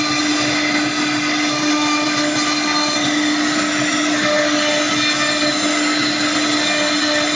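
CNC wood router running steadily, a constant whine held at one pitch over an even rushing noise.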